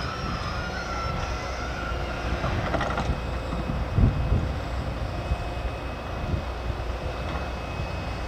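Heavy diesel earthmoving machinery running: a steady low engine rumble with thin, high metallic squeals coming and going, and a loud thud about four seconds in.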